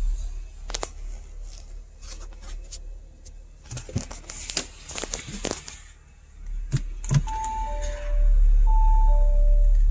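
Audi RS5 cabin: a few clicks and knocks from the centre console controls, then, from about seven seconds in, the rear parking aid comes on with a repeating two-tone chime, high then low, over a low hum that grows louder about a second later.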